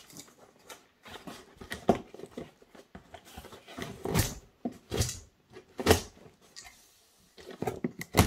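Cardboard shipping box being opened: a utility knife slits the packing tape while the cardboard flaps rustle and scrape, in short irregular strokes with a brief lull near the end.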